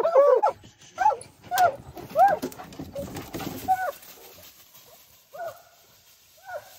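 Bear hounds baying: several dogs bawling together at the start, then single long calls every second or so that grow fainter and further apart. Rustling in dry leaves runs under the calls in the first few seconds.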